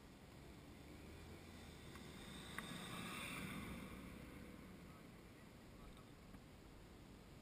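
A car driving past on the road, faint: its engine and tyre noise swell to a peak about three seconds in and then fade away. A single sharp click comes just before the peak.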